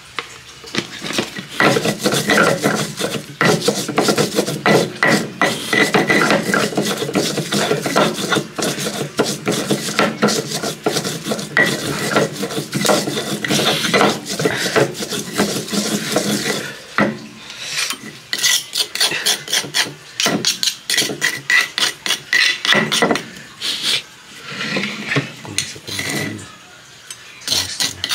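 Stone pestle grinding fresh red chilies on a flat stone mortar (Indonesian ulekan and cobek), a fast run of gritty rubbing and scraping strokes. After about seventeen seconds the strokes thin out into scattered scrapes and taps of stone on stone.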